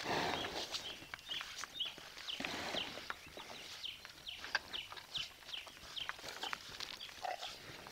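Small birds chirping over and over in short falling notes, over the rustle and shuffle of Hereford-type cattle feeding and moving around on dry ground. Two louder spells of rustling come near the start and about two and a half seconds in.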